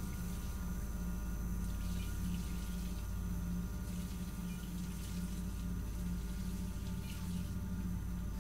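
Bathroom faucet running, a steady stream of water into the sink, over a low steady drone that pulses slightly.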